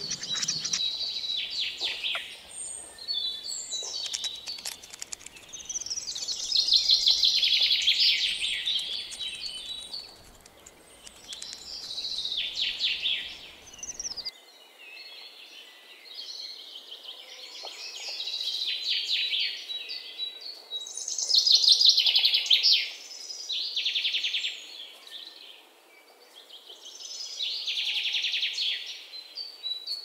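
Small songbirds chirping and twittering in quick high-pitched runs that come in spells of one to three seconds, with quieter gaps between.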